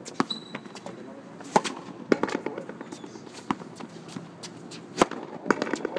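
Frontón rally: the ball is struck by racquets and smacks off the concrete wall in about half a dozen sharp cracks at uneven intervals, the loudest about a second and a half in and about five seconds in.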